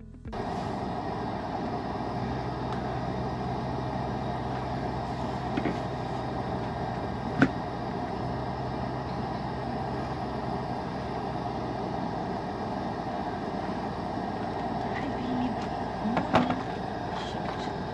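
Steady rushing noise with a low hum that fades out partway through, broken by a sharp click about seven seconds in and another near the end.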